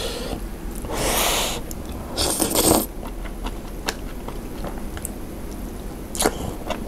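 A person slurping glass noodles in soup from chopsticks, close to the microphone. There are two long, loud slurps about one and two and a half seconds in, followed by smaller mouth noises and clicks.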